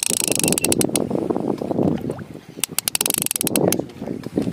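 Fishing reel ratcheting in rapid runs of ticks, the longest at the start and about three seconds in, while a hooked king mackerel is played on the rod. Underneath is a steady wash of sea water and wind.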